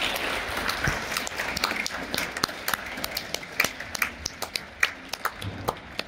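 Audience applause dying away: a dense patter at first that thins out into scattered single claps.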